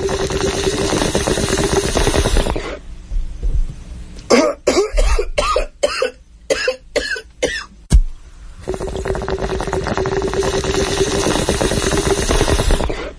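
A double bong rip: a long bubbling draw on a water pipe, then a fit of about eight sharp coughs, then a second long bubbling draw.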